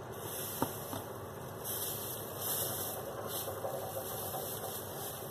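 Plastic bag crinkling and rustling in the hands, in a few hissy surges, over a steady background hum. One sharp click sounds about half a second in.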